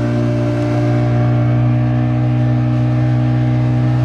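Boat's outboard motor running steadily at cruising speed, its engine note holding one even pitch.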